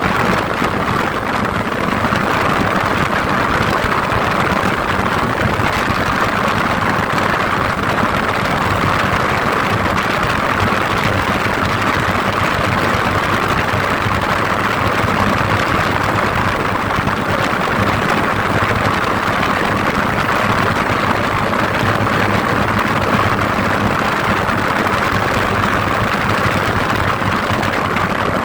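A vehicle engine running steadily under a constant wash of travel noise, with a low hum and no change in speed or load.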